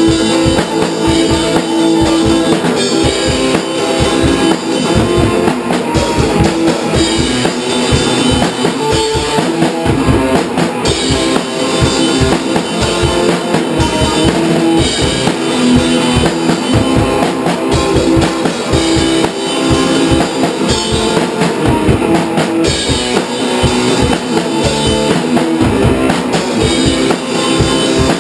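Electric guitar and drum kit playing an instrumental indie punk song: loud, steady strummed chords over a driving beat with frequent drum hits, and no vocals.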